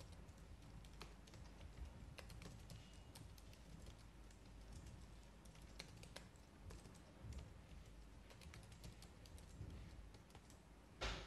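Faint computer keyboard typing: irregular keystrokes as an email address is typed out, with one brief louder noise near the end.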